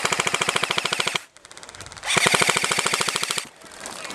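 Airsoft gun firing on full auto in two long rapid bursts, the second starting about two seconds in after a short pause.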